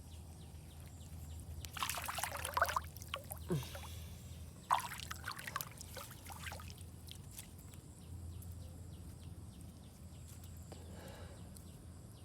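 Water splashing and sloshing in two bursts, about two seconds in and again about five seconds in, with a faint trickle between them.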